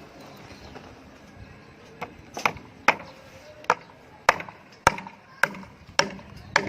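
Hammer nailing wooden formwork boards: a run of about nine sharp strikes, a little over one a second, starting about two seconds in.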